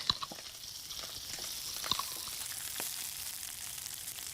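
Chicken breasts frying in a pan, a steady high sizzle as the skin browns, with a few light clicks about a second apart.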